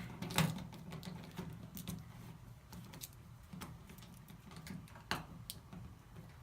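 Scattered light clicks and taps of screws and small hardware being handled while the screwed-on stabilizing piece is taken off a washing machine, with the sharpest clicks about half a second in and around five seconds in.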